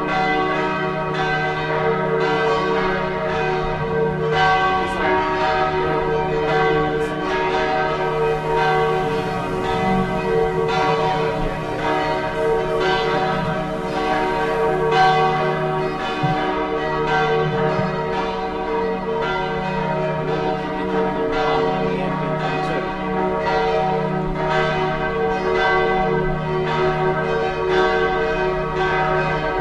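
Bells ringing continuously, struck over and over, with their tones ringing on and overlapping, as in a church bell peal.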